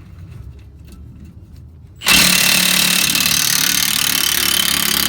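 Impact wrench cutting in about two seconds in and running loud and steady for the rest, driving a leaf-spring U-bolt nut with a freshly swapped smaller socket.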